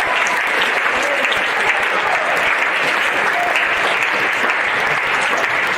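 Large crowd applauding steadily: many hands clapping at once in a big hall.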